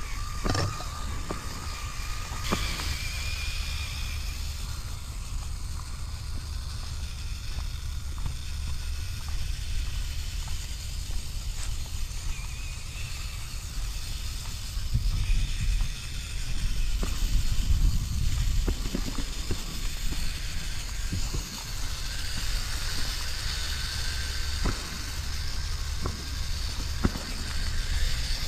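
Axial Capra RC crawler's electric motor and geared drivetrain whining faintly as it crawls over gravel and grass, with scattered clicks of tyres on stones. A steady low rumble runs underneath and is loudest a little past the middle.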